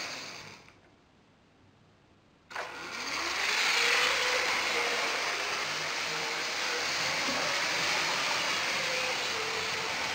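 A Lego train's electric motor starts and speeds up with a rising whine about two and a half seconds in, then runs steadily with wheel noise on the plastic track.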